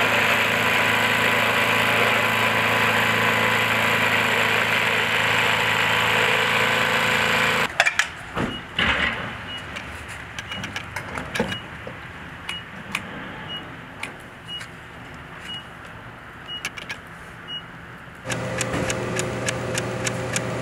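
Gas snowblower engine running steadily and loud for the first several seconds, then cut off abruptly. After it come quieter outdoor sounds with scattered clicks and a faint high beep about once a second, and a steady hum starts near the end.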